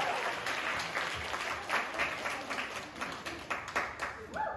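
Small audience applauding, the clapping thinning out and dying away.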